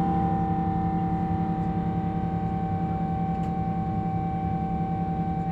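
Boeing 777-200ER's jet engines heard from inside the cabin: a steady drone with a high, steady whine over a low hum, slowly getting quieter and fading out near the end.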